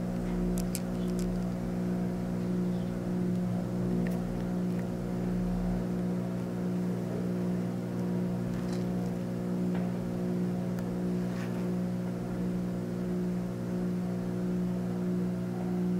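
A steady low hum that holds one pitch throughout, with a few faint clicks.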